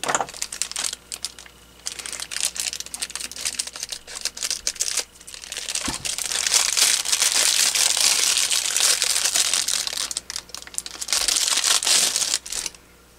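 Plastic packaging crinkling and rustling as a phone charger cable is unwrapped by hand, with a single light knock about halfway through.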